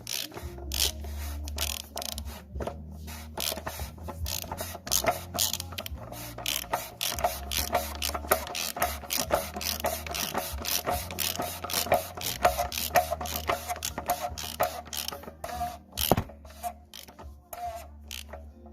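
Hand socket ratchet clicking in quick runs of strokes, as a fastener is turned during an oil change on a BMW 530d. The clicking thins out near the end.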